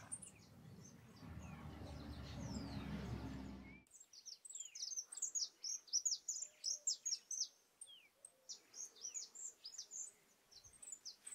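A low rushing noise with a few faint bird calls, cut off abruptly a little under four seconds in, followed by many small birds chirping busily: quick, high, downward-sweeping chirps, several a second and overlapping.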